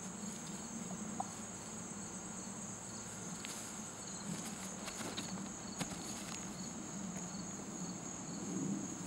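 Crickets and other insects chirring steadily in a continuous high buzz, with a second cricket chirping about twice a second. A few faint footfalls of bare feet on grass come near the middle.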